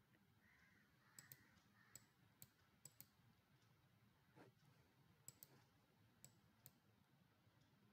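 Near silence with about ten faint computer mouse clicks, scattered and some in quick pairs.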